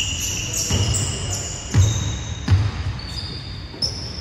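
Basketball dribbled on a hardwood gym floor: a few dull thuds that echo in the hall, the louder ones near the middle.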